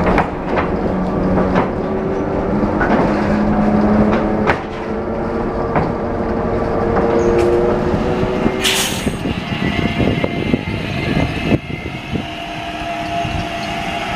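Onboard a Translohr STE4 rubber-tyred tram: the electric traction whine rises slowly in pitch as the tram gathers speed, with knocks and rattles from the body. About nine seconds in, after a brief hiss, the sound changes to the tram heard from trackside as it approaches, running with a steady whine.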